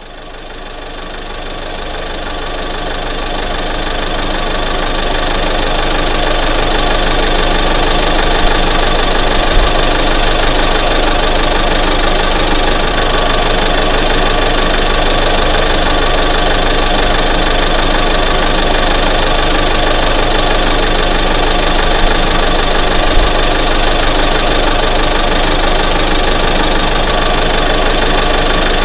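Engine of a 1988 Ford F-150 pickup idling steadily, fading in over the first few seconds and then holding an even level.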